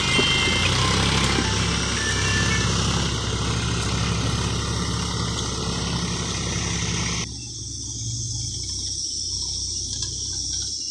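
Indo Farm tractor's diesel engine running steadily as it pulls a fully loaded earth trolley. About seven seconds in the sound drops suddenly and turns duller, with the engine hum still going.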